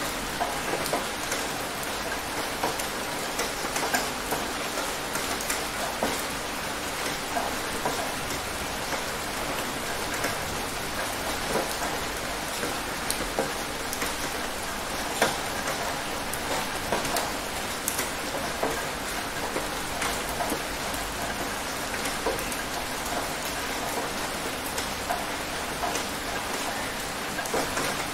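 Steady rain falling, an even hiss dotted with many separate louder drop impacts.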